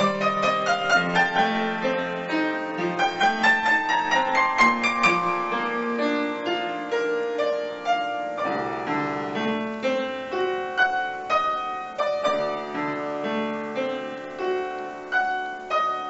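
Background piano music, a flowing run of notes that turns to a fuller, slower-moving passage about halfway through.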